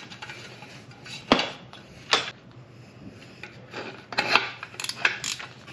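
Oxygen sensor being screwed into the bung of a stainless steel catalytic converter downpipe and tightened with an open-end wrench: metal rubbing and scraping, with sharp clinks about one and two seconds in and a quick run of them near the end.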